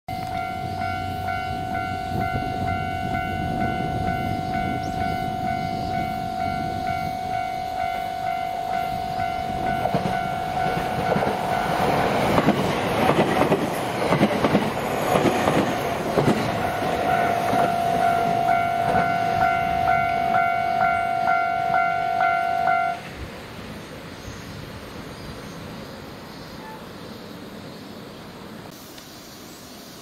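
A Japanese level-crossing warning bell rings steadily, about two strokes a second, and stops abruptly near the end. Over it, a JR West 227 series electric train passes close by, its wheels clattering over the rail joints, loudest in the middle and then fading away.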